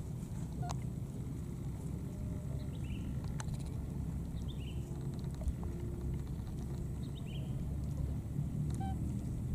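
Outdoor ambience: a steady low rumble with a few faint, short, high downward chirps spaced a few seconds apart, and an occasional light click.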